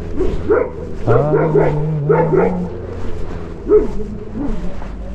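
A dog barking: a single bark, then a quick run of about six short barks, then one more. A low rumble of wind on the microphone runs underneath.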